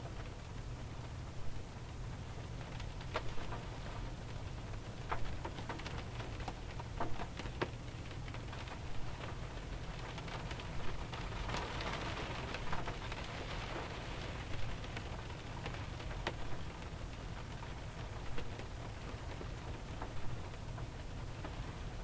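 Light rain falling on a 2001 Pontiac Grand Prix, heard from inside the car: a steady patter on the car body with scattered sharper single drop hits, growing a little heavier around the middle.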